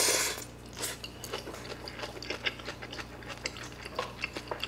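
Slurping rice noodles and broth, loudest in the first half second, then close-up chewing with many small wet mouth clicks.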